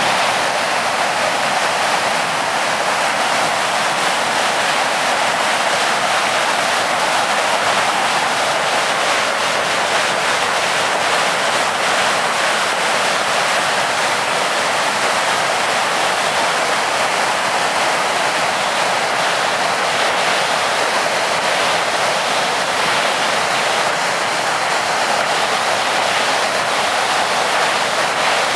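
Water pouring over a low concrete dam and churning in white water below: a loud, steady rushing noise, with the dam running high.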